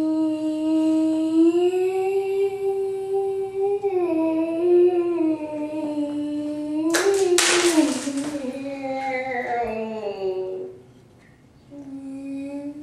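A person humming a steady, slightly wavering drone with the mouth, imitating airplane engines. About seven seconds in there is a short hissing burst; the pitch then slides down and breaks off, and the humming starts again a second later.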